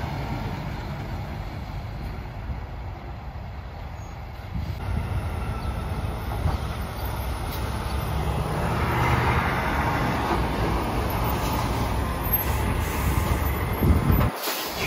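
Diesel semi-trucks driving by: one tractor-trailer pulling away, then another approaching and passing close, its engine and tyre rumble growing louder from about five seconds in.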